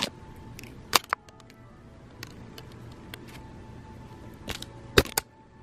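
Thin plastic packing straps clicking and snapping as they are flicked and handled, a few sharp cracks, loudest about a second in and again near the end, over faint steady tones.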